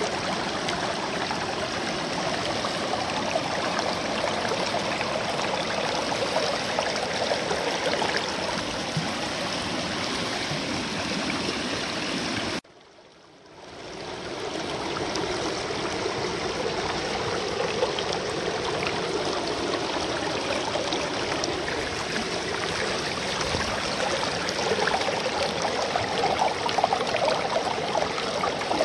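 River water rushing over rocks in shallow rapids and pouring through a metal gold sluice box set in the current: a steady wash of flowing water. The sound cuts out for about a second near the middle and fades back in.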